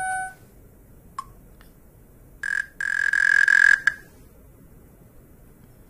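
Short electronic sound effects played through an iPhone's small speaker while sounds are tested: a beep dying away at the start, a faint blip about a second in, then a brief tone and a louder buzzing tone lasting about a second.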